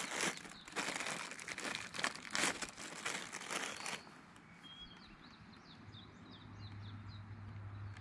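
Crinkling of a plastic bread wrapper being handled for about four seconds. After that, birds chirping in short quick notes, with a low steady hum coming in about six seconds in.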